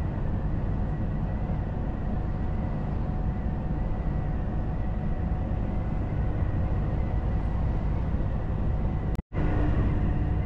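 In-cab road noise of a Volvo FH460 truck cruising at motorway speed: its 13-litre six-cylinder diesel and tyres make a steady low rumble. Over the rumble sits a faint thin steady whistle, which the driver puts down to the cab's air blower, still whistling after a repair. The sound cuts out for a moment near the end.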